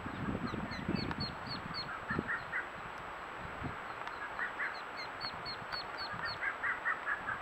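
Ducks calling: a hen duck quacking repeatedly, with runs of short, high, quick peeps from the ducklings at the tree-hole nest. The hen's calling is the signal that draws the ducklings out to jump.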